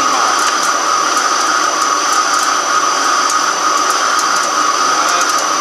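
Microcut BNC-6500 heavy-duty flat-bed lathe turning a large metal cylinder under cut: a loud, steady machining noise with a high steady whine over it and light ticks scattered through it.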